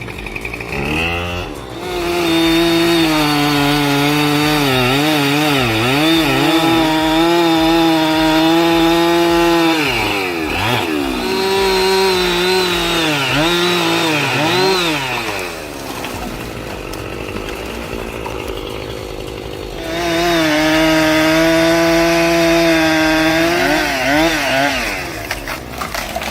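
Gasoline chainsaw running at full throttle and cutting wood, its engine pitch dipping and recovering as the chain loads up in the cut. For a few seconds past the middle it eases off to a lower, quieter run, then revs back up and cuts again.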